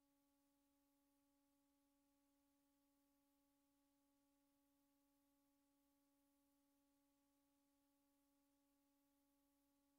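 Near silence: only a very faint, steady hum of a few pitched tones over a light hiss.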